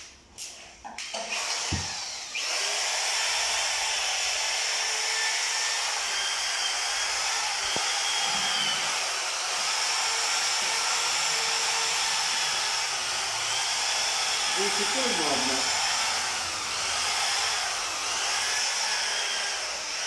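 A power tool running steadily with an even, whirring hiss, starting about two seconds in after a short clatter.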